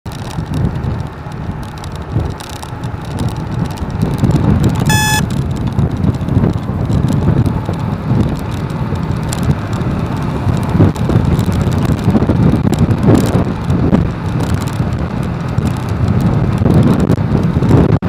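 Wind buffeting the microphone of a moving motorbike, over the low rumble of the bike and road traffic. About five seconds in comes one short, high beep.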